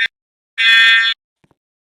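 Fire alarm horn sounding a harsh, buzzing blast of about half a second, just after an earlier blast cuts off at the start; the rest is silence apart from two faint clicks.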